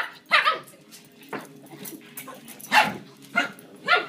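Dog barking in play: about five short barks at uneven intervals, the loudest ones near the end.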